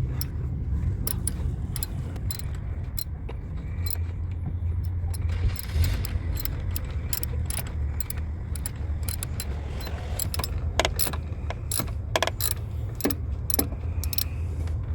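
Ratchet and 13 mm socket clicking in short, irregular runs while tightening the battery hold-down bracket bolt, with small metal clinks, over a steady low hum.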